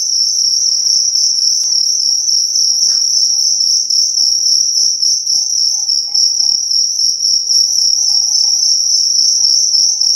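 Field crickets kept for fighting chirping loudly in a high, rapid pulsing trill that never breaks. Faint rustling and a couple of light clicks from the tank being handled lie underneath.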